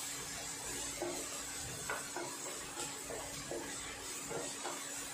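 Chopped onion sizzling as it fries in ghee in a granite-coated nonstick kadai, with a spatula scraping the pan about once a second as it is stirred.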